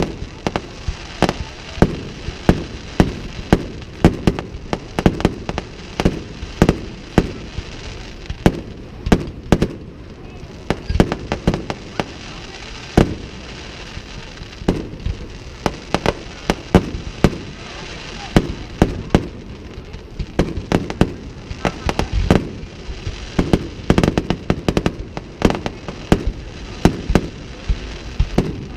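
Fireworks display: sharp bangs and pops in rapid, irregular succession, often several a second, over a steady background noise.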